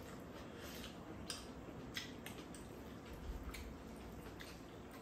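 Quiet eating from bowls: scattered small clicks of chopsticks against the bowls, and soft chewing of noodles. A brief low thump comes a little past three seconds in.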